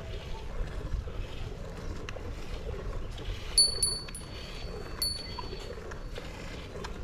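Small metal bell hanging from a cow's neck cord clinking three times, about halfway through and again about a second later, each clink ringing briefly with a high tone.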